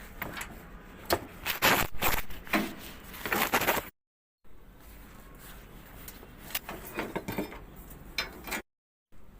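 Knocking and clattering of hard objects being handled, with a dense run of sharp knocks in the first few seconds and a few scattered clicks later. The sound drops out abruptly twice, as if cut.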